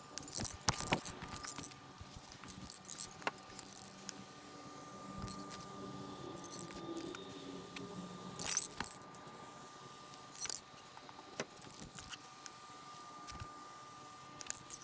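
Scattered metallic clinks and jangling rattles, several in quick succession near the start and again about halfway through, over a faint steady high hum.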